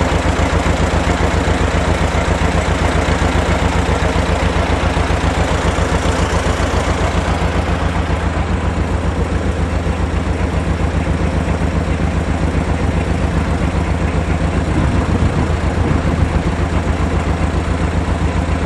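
A vehicle engine idling steadily with an even low throb.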